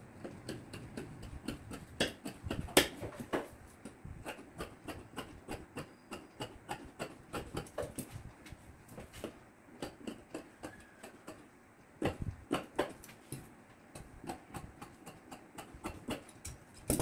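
Large tailor's shears cutting along a pattern edge: a steady series of short, crisp snips, about three a second, a few of them much louder than the rest.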